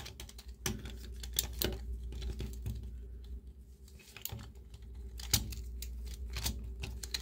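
Light, irregular clicks and taps of hard plastic action-figure parts handled in the fingers while a cord threaded through the figure's legs is pulled tight and knotted, over a low steady hum.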